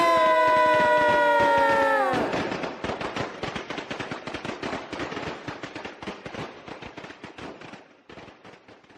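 The song's final held note ends about two seconds in. A rapid crackle of many small firecracker pops follows and fades away steadily.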